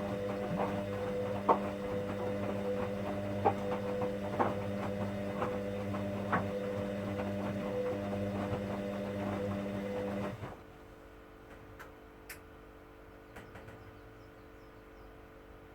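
1959 Hoover Daily washing machine running with a steady motor hum and scattered sharp clicks, then switching off about ten seconds in. A fainter hum and a few light ticks remain after it stops.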